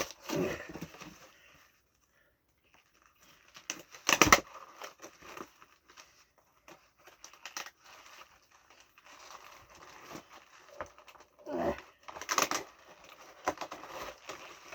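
Packaging being torn open and crinkled by hand: irregular rustling and tearing, with a loud sharp tear about four seconds in and another flurry near the end.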